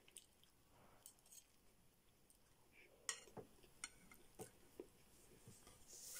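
Faint close-miked chewing of a mouthful of spaghetti: scattered short mouth clicks and smacks, most of them in the second half.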